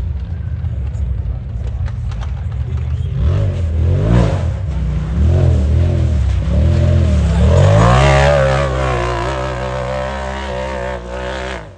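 Off-road race vehicle's engine revving up and down several times, then climbing in pitch and holding a high, wavering note at high revs. The sound cuts off suddenly near the end.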